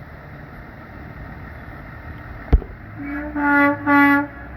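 Truck air horn sounding two loud blasts in quick succession near the end, one steady pitch, over the rumble of passing traffic. A sharp click comes about a second before.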